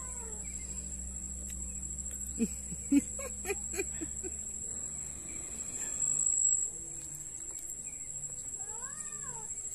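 Insect trilling steadily at a high pitch, with a few short low calls about two and a half to four seconds in and a rising-and-falling bird call near the end.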